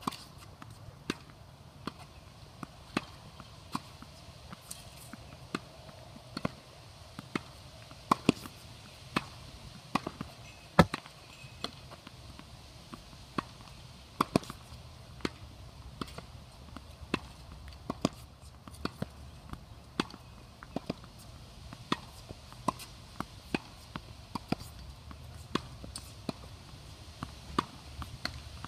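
Tennis ball being hit back and forth: sharp pops of racket strings striking the ball and the ball bouncing on the court, one or two a second in an uneven rhythm.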